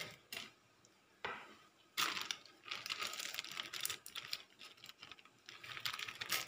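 Thin plastic bag crinkling as it is squeezed and shaken out: a few separate crackles in the first two seconds, then a continuous run of crackling from about two seconds in.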